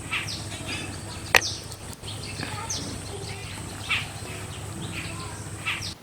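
Birds chirping with many short, falling calls, with a sharp click about a second and a half in.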